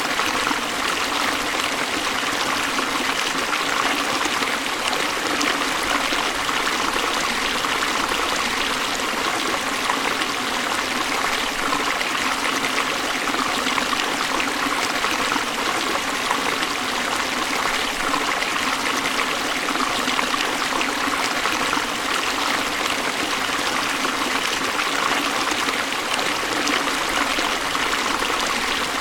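River water rushing steadily over falls: an even, unbroken rush with no distinct splashes or changes.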